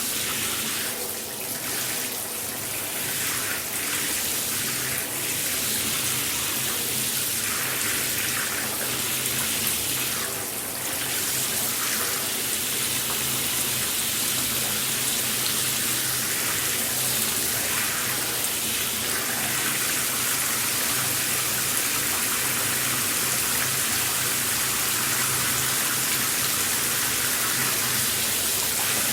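Shower water spraying and splashing steadily, a continuous hiss with uneven swells in the first part that settle into an even stream.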